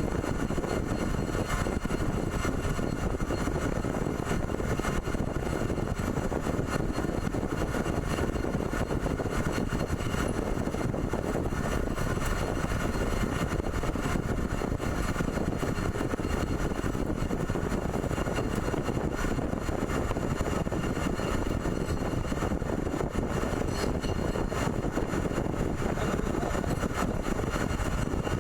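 A CNC pipe threading machine running steadily: a continuous mechanical drone with faint steady high tones over it.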